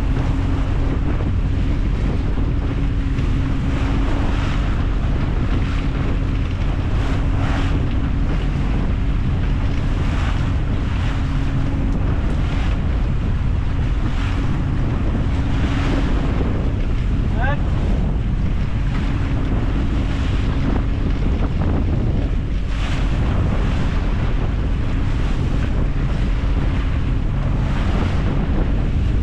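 Mercury outboard engine running at a steady hum as the boat moves under way, with heavy wind buffeting the microphone and water splashing and rushing along the hull and wake in repeated surges.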